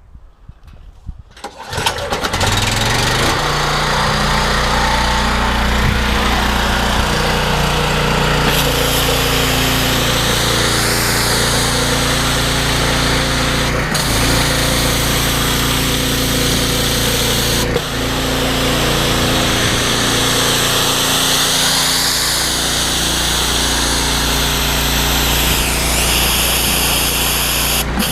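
A 14 horsepower Loncin petrol engine on a pressure washer starts about two seconds in and then runs loud and steady. The sound dips briefly twice.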